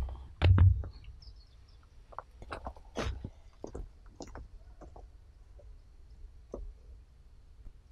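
A stone set down on dry dirt with a loud thud about half a second in, followed by scattered light crunches and clicks of footsteps on dry leaf litter that thin out after about four seconds.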